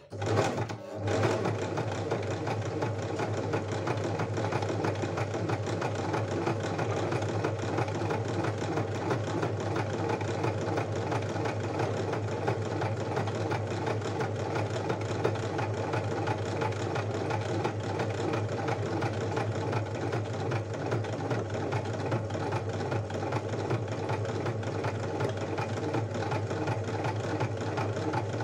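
Domestic electric sewing machine running steadily, sewing a wide zigzag stitch along a fabric edge to overcast it; it settles into an even run about a second in.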